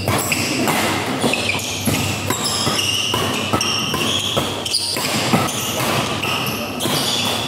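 Badminton doubles rally: rackets striking the shuttlecock in quick exchanges, with many short, high squeaks from players' shoes on the court.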